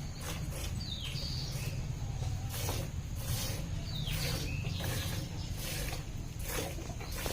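Buffalo being milked by hand: short squirts of milk repeating about two or three times a second, with a couple of faint bird chirps.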